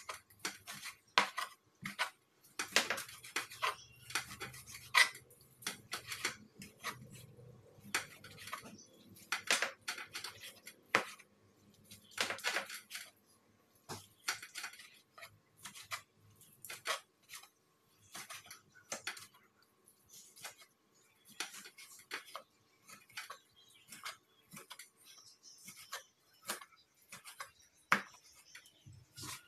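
Kitchen knife slicing parboiled pork belly on a wooden cutting board, the blade knocking on the board in irregular taps and clicks.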